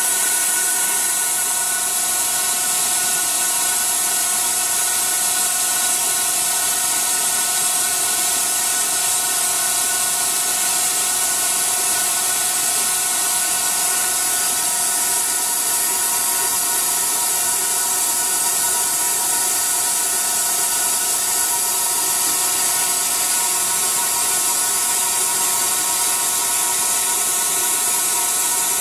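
Vintage Karger manual lathe running at about 1000 RPM during a boring cut, its drive giving a steady chord of whining tones. Over it, compressed air hisses continuously as it is blown into the spindle bore to clear chips.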